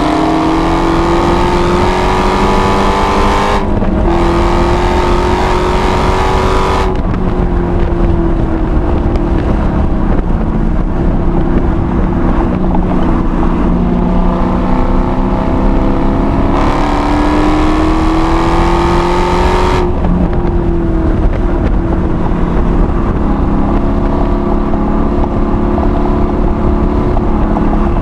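Supercharged 6.2-litre HEMI V8 of a six-speed manual Dodge Hellcat, heard from inside the car on track. Its pitch climbs under acceleration, breaks briefly for a gear change about three and a half seconds in, and climbs again. It falls away around seven seconds in, builds again before dropping at about twenty seconds, then runs fairly steady over a constant road and wind rumble.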